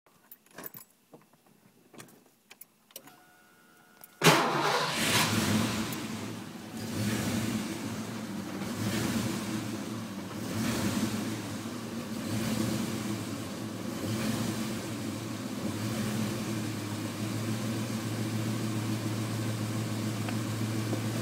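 Ford Mustang 5.0 V8 started after a few clicks and a brief whine, catching about four seconds in and then idling roughly, the engine note swelling and dipping every couple of seconds before it steadies: the rough, unstable idle of a car that bogs and stalls, whose IAC valve, vacuum lines and fuel pressure regulator the owner has already found good.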